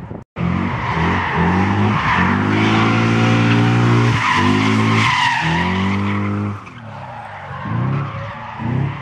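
Drift car engine revving hard, its pitch rising and falling with the throttle, over continuous tyre squeal as the car slides sideways with its rear tyres spinning and smoking. The sound cuts out briefly right at the start, and it drops away about six and a half seconds in, leaving lower, fainter revs near the end.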